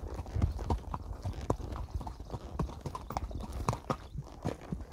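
Horse's hooves clip-clopping on wet dirt and rock as it is ridden, an uneven run of sharp knocks several times a second over a low rumble.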